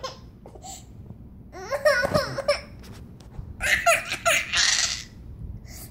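Baby crying in short, broken bursts about two and four seconds in, upset at having a wad of chewed paper taken out of his mouth.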